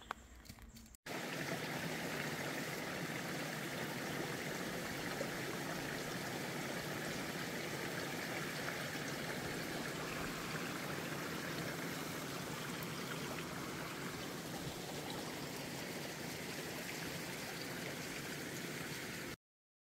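A few footsteps on a dirt trail, then, from about a second in, a small mountain creek running steadily with a continuous rush of water; it cuts off suddenly near the end.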